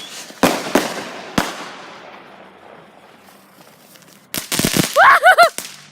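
Fireworks going off: three sharp bangs in the first second and a half, each trailing off, then a rapid volley of loud cracks about four and a half seconds in. A short high-pitched shriek rises over the volley near the end.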